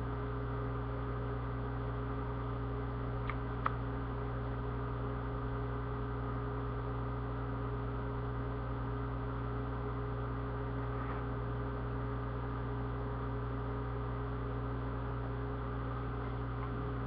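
Steady electrical hum with two small clicks a little over three seconds in.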